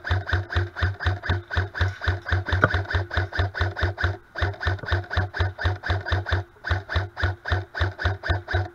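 Background music with a fast, steady pulsing beat, about five heavy low beats a second.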